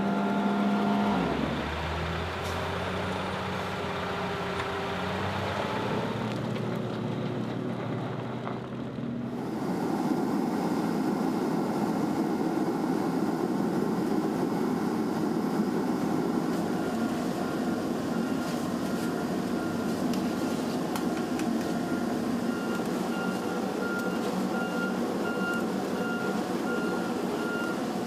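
Bv206 tracked all-terrain vehicle's engine running as it drives along, its note dropping about a second in. After about nine seconds a steady machine hum takes over, and from about seventeen seconds in a regular run of short electronic beeps joins it.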